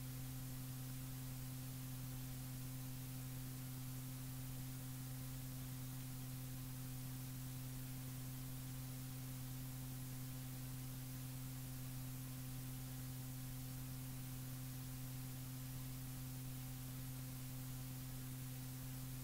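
Steady low electrical hum with a faint hiss: the noise floor of an old tape recording with no programme on it.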